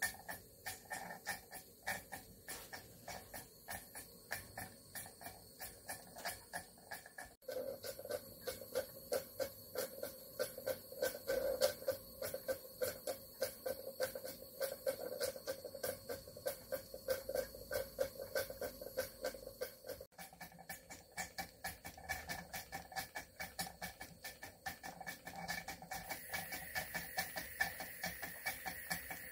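Model steam engine running steadily, with a regular beat of exhaust puffs and clicks at about two to three a second. A steady hum joins about seven seconds in and drops away at about twenty seconds.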